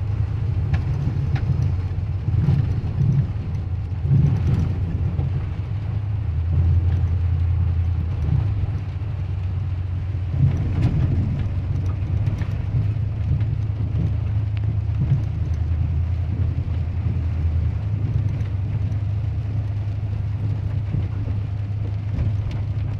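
Steady low drone of a car's engine and tyres heard from inside the cabin while driving slowly on wet pavement; the hum drops a little in pitch for a few seconds about six seconds in.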